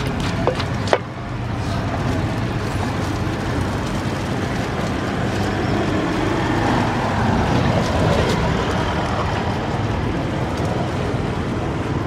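Two knocks of a wooden pestle in a clay mortar within the first second, then a steady engine-like rumble that swells around the middle and eases off again.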